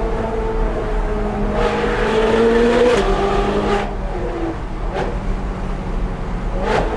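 Ferrari 458 Speciale's V8 with a Fi aftermarket exhaust, heard from inside the cabin, pulling hard on a mountain road. The revs climb, then drop abruptly about three seconds in, and there are sharp cracks about five seconds in and near the end.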